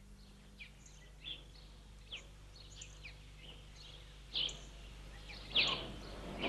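Faint scattered bird chirps, each a short falling note, irregular and a few seconds apart, with two louder ones in the second half, over a steady low hum.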